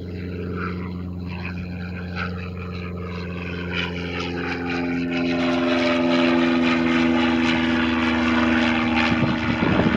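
Cessna 560XL Citation jet's twin turbofan engines at takeoff power as the jet lifts off and climbs out: a steady rumble with several whining tones. Higher whines join about four seconds in, and the sound grows louder over the first six seconds.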